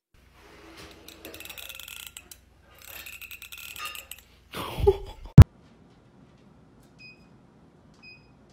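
Teeth of a comb strummed with a finger, a fast crackle of clicks in two runs. Then a short low sound falls in pitch and is cut off by a loud sharp knock. After that a treadmill runs with a low hum and its console beeps twice.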